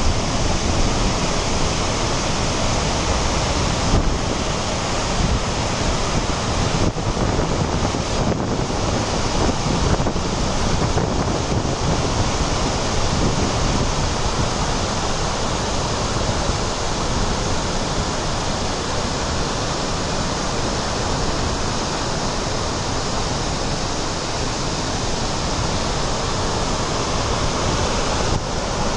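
Floodwater pouring over Ladybower Reservoir's overflow in a steady, dense rushing that barely changes.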